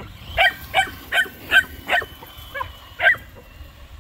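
A puppy giving a quick run of short, high yips and barks, about seven of them, stopping near the end.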